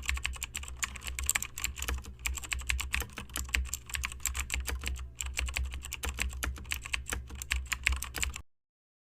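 Rapid, irregular clicking like typing over a steady low hum; it cuts off suddenly about eight seconds in.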